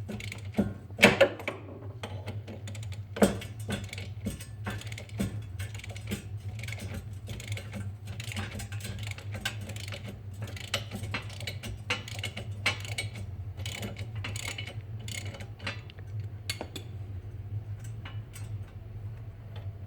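Metal clicks and clanks as a Cadillac front wheel hub bearing is worked loose from the steering knuckle, with two louder knocks about one and three seconds in, over a steady low hum.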